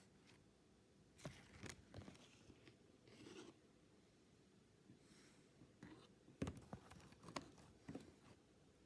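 Pokémon trading cards and their foil booster-pack wrapper being handled: faint, scattered rustles and clicks, the sharpest about six and a half seconds in.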